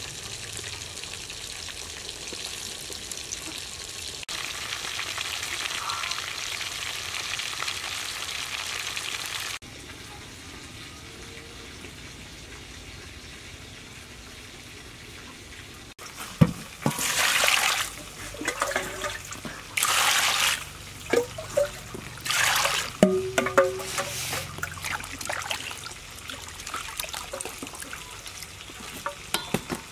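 Hands swishing vegetables in a steel bowl of water, with several loud splashes from about halfway in; before that, a knife shaving and cutting pineapple.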